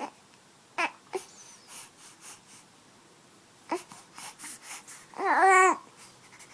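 Baby hiccuping: several short, sharp hiccups spread over the first four seconds, then a longer baby vocal sound with a wavering pitch a little past five seconds in.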